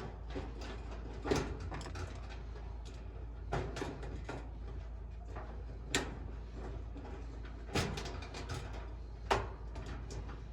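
Sharp clicks and clunks of metal parts being handled inside a dryer as wire connectors are pulled off the heating element's terminals. There are about five separate knocks, a couple of seconds apart, over a low steady hum.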